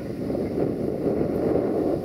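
Sulzer diesel engine of a 060-DA (LDE2100) diesel-electric locomotive running under power as it moves slowly with a freight train. A low rumble that grows louder in the first half-second and then holds, with wind on the microphone.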